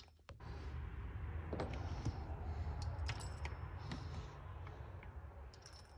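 Light scattered clicks and handling noise from tools and parts being worked by hand during the alternator pulley fitting, over a low rumble, fading toward the end.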